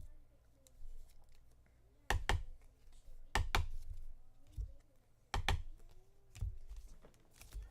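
Sharp clicks and taps, mostly in close pairs, several times.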